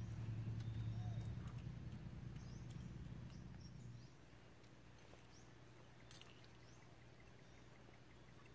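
Faint, scattered bird chirps over a low steady hum that drops away about four seconds in, with a faint click a couple of seconds later.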